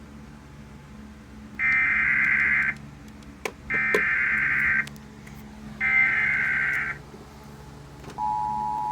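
Emergency Alert System SAME header: three rapid data-tone bursts about a second long, a second apart, followed near the end by the steady two-tone EAS attention signal. It opens a relayed severe thunderstorm warning.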